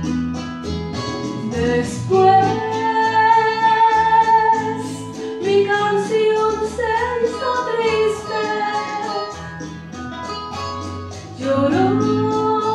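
A woman singing long held notes over a strummed guitar. The voice comes in about two seconds in, and a new sung phrase begins near the end.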